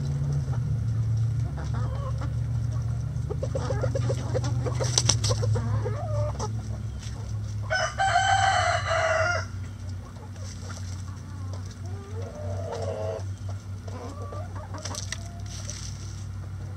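Backyard chickens clucking as they forage, with a rooster crowing once about eight seconds in, the loudest sound. A low steady hum runs underneath.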